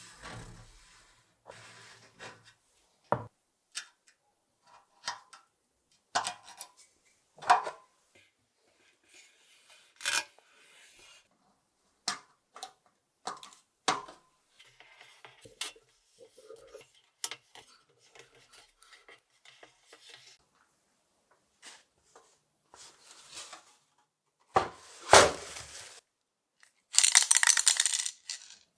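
Small hard parts clicking and knocking as they are handled on a workbench, at irregular intervals, with a louder hissing burst near the end.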